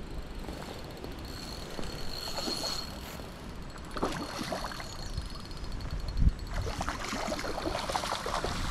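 Outdoor noise of flowing stream water and wind on the microphone, with brief rustling and a dull thump about six seconds in.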